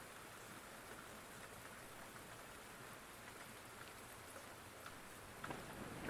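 Soft, steady rainfall with scattered drops ticking on a surface, growing a little louder in the last second.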